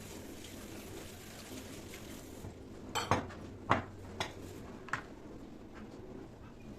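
Kitchenware clinking and knocking: four or five sharp clinks in the middle, over a low steady room background.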